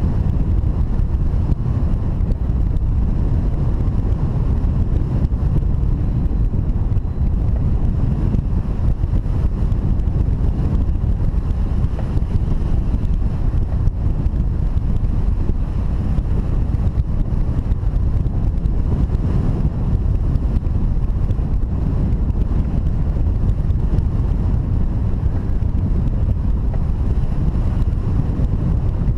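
Steady wind noise buffeting the microphone, a loud, even low rumble of airflow with no breaks, typical of a camera riding along on a hang glider in flight.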